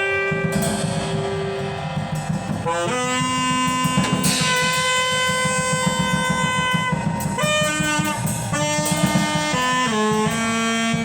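Music: long held horn-like notes, several at once, over a drum beat, with the chord changing a few times.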